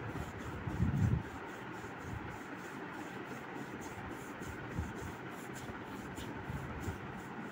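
Low steady background hiss with faint rubbing and a few soft low thumps, the strongest about a second in: handling noise from a phone being moved as it films.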